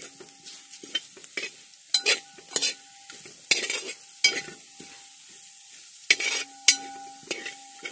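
Slotted metal spoon scraping and stirring sautéing onions and spices in a large aluminium pan, in uneven strokes, over a faint sizzle of the frying masala. The pan rings briefly after several of the strokes.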